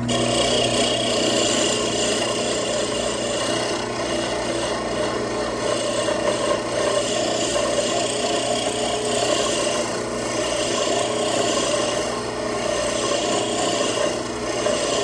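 Wood lathe running while a parting tool cuts into the spinning wooden duck-call blank: a continuous scraping cut over the lathe's steady low hum, as the tool is worked up and down to bring the piece down in diameter.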